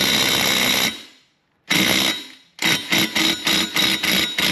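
Impact gun hammering as it drives a C-clamp ball joint press, pressing a new splined wheel stud into the hub until it seats. One sustained run stops about a second in, then comes a short burst, then a string of quick bursts to the end.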